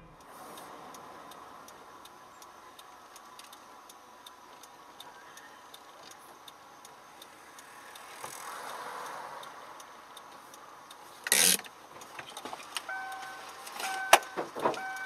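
Car cabin sound with a faint steady hum and a regular light ticking. About eleven seconds in comes a short loud rush, followed by repeated electronic beeps from the car and a few sharp clicks near the end.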